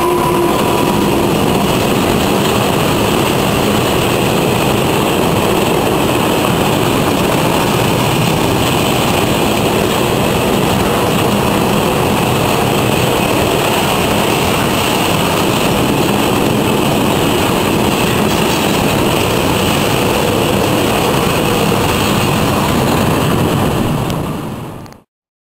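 Freight train of loaded flat wagons rolling past at speed: a loud, steady rush of wheels on rail. It fades out quickly near the end.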